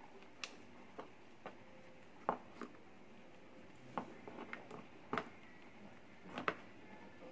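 Abyssinian guinea pigs nibbling crisp lettuce: scattered, irregular little crunches and crackles, a few of them louder.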